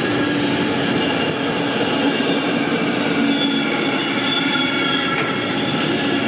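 Freight train of container and tank-container flat wagons passing close by at speed: a steady, loud rushing of steel wheels on rail, with a sustained low hum and several high whining tones from the wheels.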